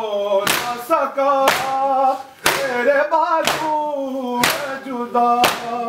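A group of men doing matam, striking their chests together in sharp slaps about once a second, six times, while a noha (Muharram lament) is chanted between the strikes.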